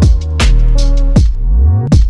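Electronic background music: a steady drum beat over heavy bass with sliding bass notes.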